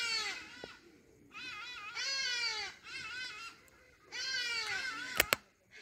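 An animal crying repeatedly: several high, drawn-out calls of about a second each that fall in pitch, with two sharp clicks about five seconds in.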